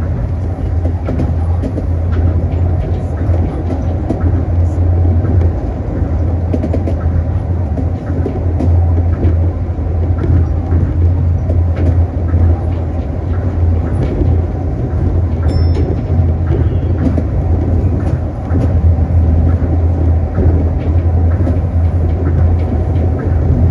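Tokyo Monorail train running along its elevated guideway, heard from inside the front car: a steady low drone over the rumble of its rubber tyres on the concrete beam, with faint scattered ticks.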